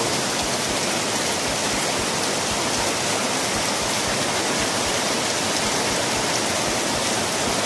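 Heavy rain pouring steadily onto vegetation and ground, a dense even hiss with no let-up, with close drops tapping irregularly underneath.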